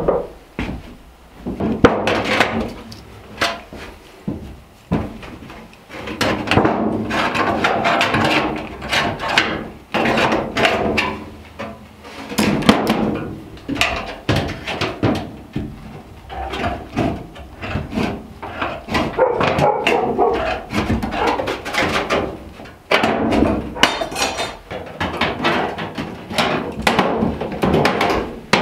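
Thin sheet copper being handled and bent by hand with pliers and snips: rattling, wobbling sheet metal mixed with repeated knocks of tools and metal against the wooden counter.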